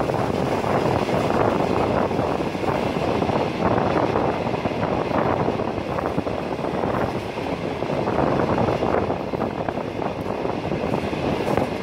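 Steady rumble of a Pakistan Railways passenger train running at speed, heard from a coach: wheels on the rails and the rush of air past the moving carriage.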